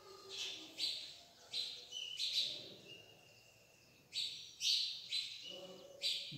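Chalk writing on a blackboard: a run of short, scratchy strokes, a few of them drawn out into a thin, steady squeak.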